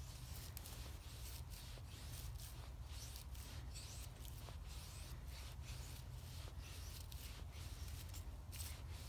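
A knife scraping along a wooden stick in short repeated strokes, about two or three a second, as when carving feather-stick curls for tinder. A low wind rumble runs underneath.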